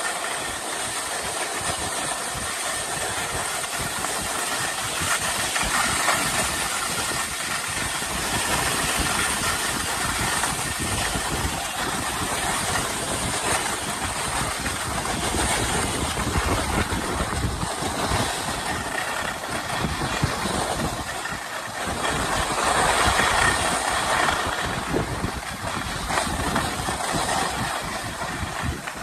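Two pairs of skis sliding and scraping over groomed snow in a steady hiss, with wind rushing over the microphone during the descent. It swells for a few seconds near the end.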